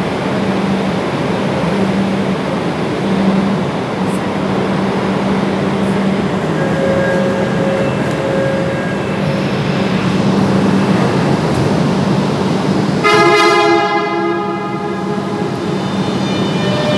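Metro train's steady running rumble with a low hum, and about three-quarters of the way in a short, loud horn blast that fades out over a second or two.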